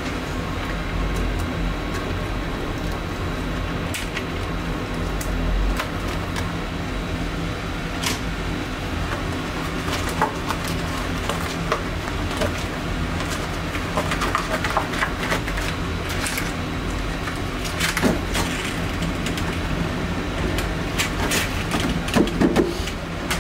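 Black rubber gloves being pulled on, with scattered rustles and small clicks, then a gloved hand gripping a glass jar of pickles to twist the stuck lid, with a few louder knocks near the end. A steady background hiss with a low hum runs underneath.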